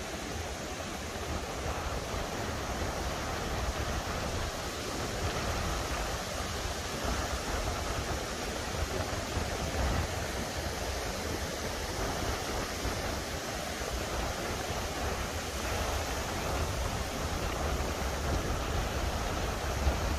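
Surf breaking and washing up the shore, a steady rush of noise, with wind buffeting the microphone in a low, flickering rumble.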